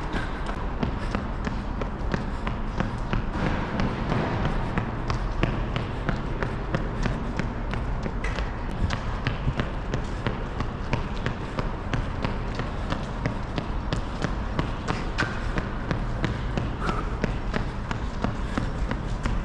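Running footsteps in Asics Novablast 3 shoes striking the pavement in a steady rhythm of about three steps a second, over constant outdoor background noise.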